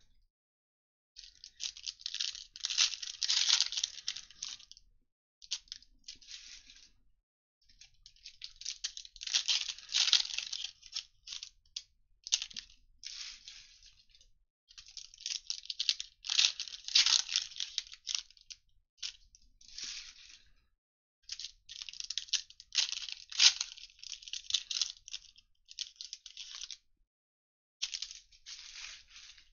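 Foil trading-card pack wrappers being torn open and crinkled, in a run of crackly bursts of one to four seconds with short pauses between them.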